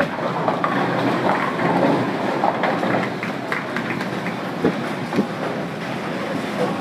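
Bowling alley din: balls rumbling down the lanes and pins clattering, with two sharper knocks about two-thirds of the way through.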